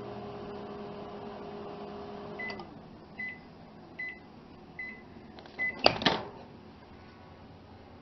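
Panasonic 1250-watt microwave oven running with a steady hum, then shutting off about 2.5 s in as the cook timer runs out, the hum falling away. It then beeps five times, about 0.8 s apart, to signal the end of the cycle. Near 6 s comes a loud clunk and click as the door latch is released and the door opened. It is working normally again after its burnt main door safety micro-switch was replaced.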